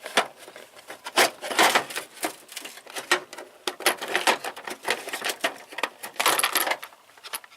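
Metal hand tools clinking and rattling as they are handled and shifted around in a tool box drawer: irregular clicks and knocks.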